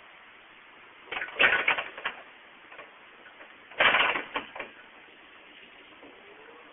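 Two short bursts of clattering knocks and rattles, one about a second in and the other about four seconds in.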